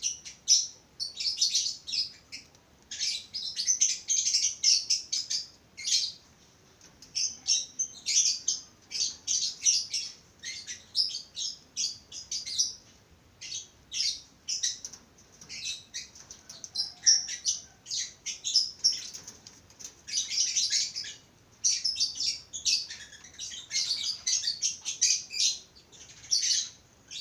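Budgerigars chattering and chirping in quick, high-pitched bouts broken by short pauses.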